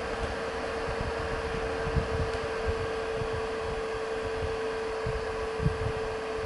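Dyson bladeless fan running at low airflow setting 4: a steady rush of air with a constant hum-like tone in it. Soft low thumps come about two seconds in and again near the end.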